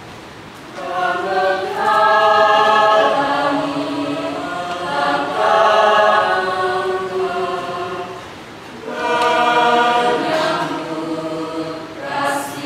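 Choir singing, the sung phrases swelling loud about a second in, again midway, and once more near the end.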